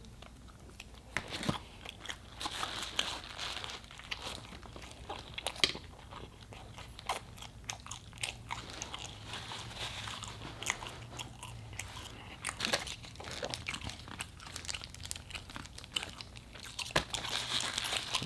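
A person chewing and biting food close to the microphone, with irregular sharp mouth clicks throughout.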